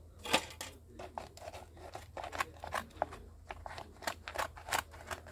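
Scissors cutting through a plastic soda-bottle bait hive: a run of irregular snips and crackles.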